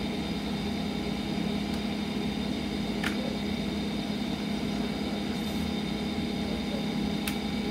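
Steady low mechanical hum of a motor-driven appliance running, with a constant low tone under it. A couple of faint clicks about three seconds in and near the end come from plastic CD jewel cases being handled.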